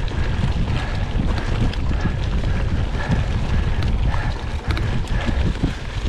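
Wind buffeting the microphone of a mountain bike ridden at speed, a heavy steady rumble, with many short knocks and rattles from the bike running over rough ground.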